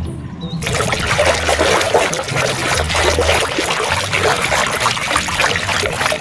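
Water splashing and trickling as a muddy toy vehicle is washed in clean water, a dense crackle of small splashes and drips that starts about half a second in.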